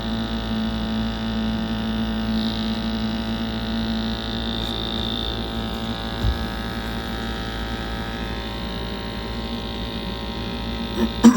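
Glow-worm Flexicom gas boiler firing at its minimum rate with a steady hum. This humming is the boiler's fault, which the engineer says is generally down to airflow, sometimes the heat exchanger or the gas valve setting. A sharp click sounds near the end.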